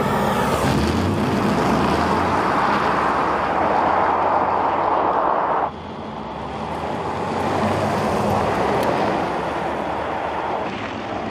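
Audi RS e-tron GT prototype, a battery-electric car, driving at speed: a steady rushing noise of tyres and air with no engine note. It cuts off suddenly about six seconds in, and a quieter rush then grows as the car approaches.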